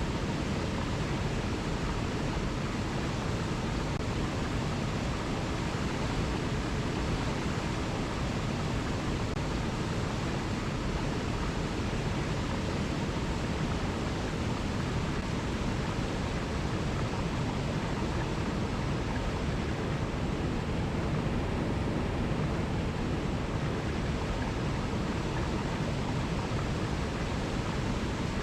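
Alpine mountain river rushing steadily over small cascades and rocks, an even, unbroken rush of water.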